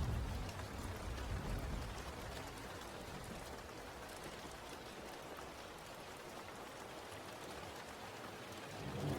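Steady rainfall hissing. A low rumble of thunder dies away over the first second or two, and another begins building near the end.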